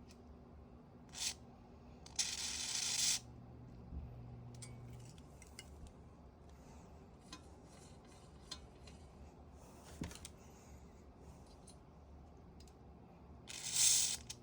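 Small clicks, taps and scrapes of parts being handled, with three short hissing bursts: a brief one about a second in, a longer one of about a second just after two seconds, and another near the end. A faint steady hum lies underneath.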